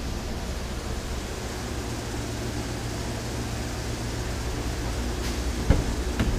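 A steady low hum over a constant hiss, with one sharp knock about five and a half seconds in and a lighter knock just after.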